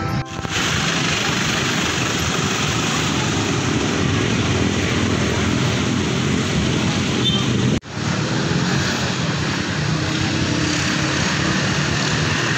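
A motor or engine running steadily with an even whirring noise, cutting out for an instant about eight seconds in.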